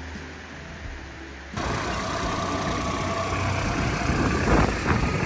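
Engine of a small motorised watercraft running steadily, coming in abruptly about a second and a half in after low background noise.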